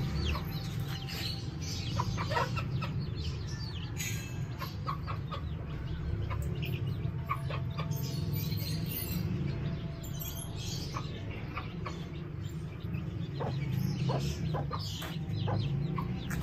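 Desi mother hen clucking among her young chicks, with short high peeps from the chicks scattered throughout over a steady low hum.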